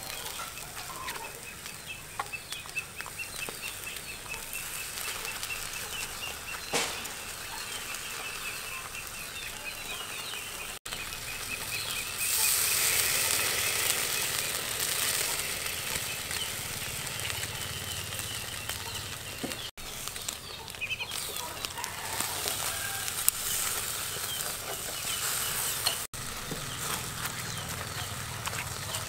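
Whole chicken roasting on a wire grill over charcoal, sizzling as it is basted with a brush, louder about halfway through. Chickens cluck in the background, and a high rapid trill runs through the first few seconds.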